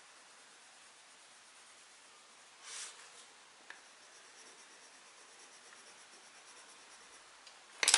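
Colored pencil tip scratching over paper, laying down a light pink swatch: a short scratchy stroke about two and a half seconds in, a light tick, then faint quick strokes. A sharp knock comes right at the end.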